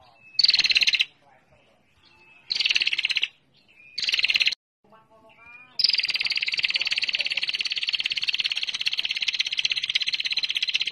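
Lure recording of a female prinia (prenjak) calling: a rapid rattling trill of closely repeated notes, first in three short bursts, then one long unbroken trill of over five seconds starting about six seconds in.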